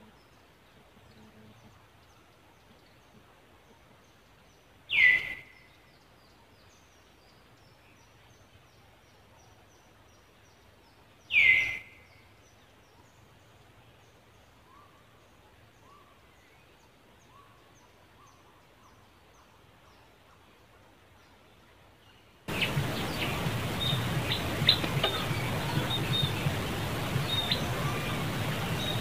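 Forest ambience with faint bird chirping and two loud, short calls about six seconds apart, each falling in pitch. Near the end the background turns suddenly louder: a steady noise full of small ticks.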